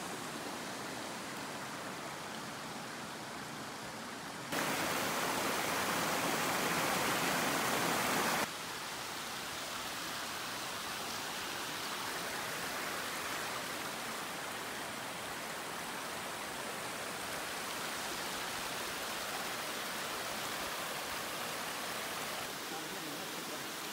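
Running water of a shallow rocky stream: a steady rushing hiss. It turns abruptly louder for about four seconds starting about four and a half seconds in, then drops back just as suddenly.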